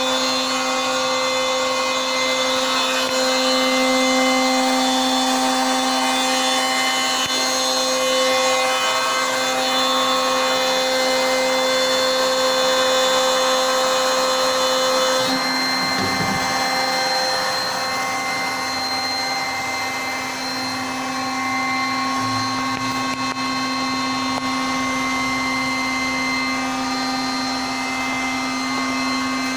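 CNC router spindle running at steady speed while cutting MDF: a constant whine over a noisy cutting hiss. The tone changes slightly about halfway through.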